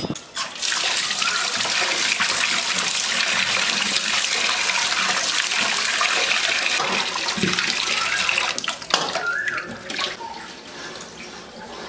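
Water running and splashing steadily, thinning out about nine seconds in, with a few sharp knocks near the end.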